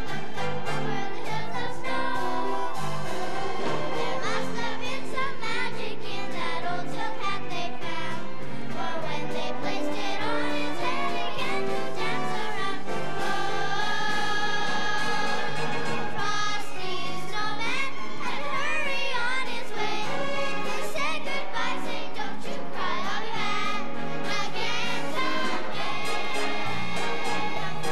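Children's choir singing a Christmas song over instrumental accompaniment.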